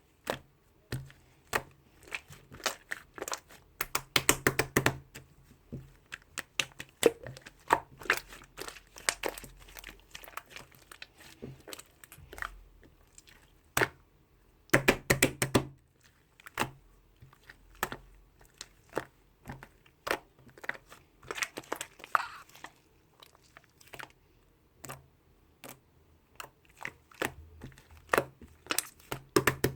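Irregular crinkling and crunching: many sharp crackles and clicks at uneven intervals, bunching into dense clusters about four, fifteen and twenty-nine seconds in.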